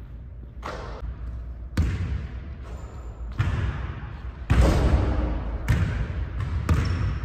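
Basketballs bouncing on a hardwood gym court: about six separate, irregularly spaced thuds, each with a ringing echo from the large hall.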